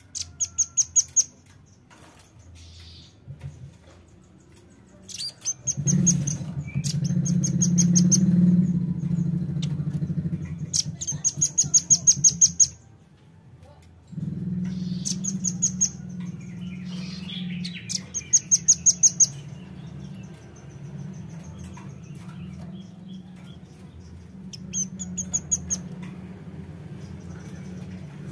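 Velvet-fronted nuthatch calling: quick rapid-fire trains of very high, sharp chips, repeated in bursts about every few seconds. A steady low hum runs underneath for most of it, dropping out briefly past the middle.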